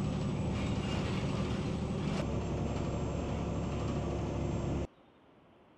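Inside a moving city bus: a steady drive hum with road and rolling noise filling the cabin. It cuts off suddenly about five seconds in, leaving only a faint hiss.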